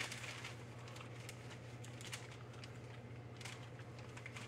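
Hands being rubbed together and wiped with a wet towelette: faint soft wet rubbing with scattered small clicks, over a low steady hum.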